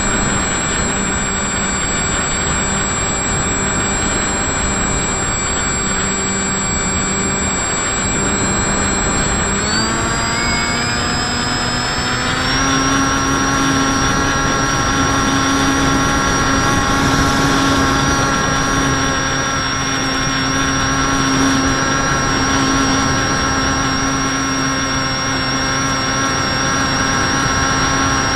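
Electric motor and propeller of an FPV radio-controlled model aircraft whining steadily over the rush of wind, as heard by the onboard camera. About ten seconds in, the whine climbs in pitch over a couple of seconds as the throttle is opened, then holds at the higher pitch.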